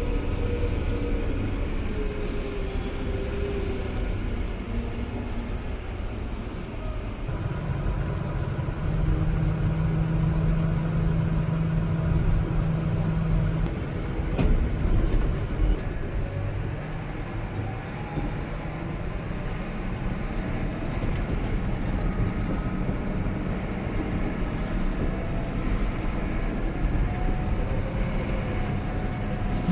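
John Deere 6150R tractor's diesel engine running, its pitch shifting early on, then stepping up about seven seconds in and holding a steady tone for several seconds, with one sharp click about halfway through.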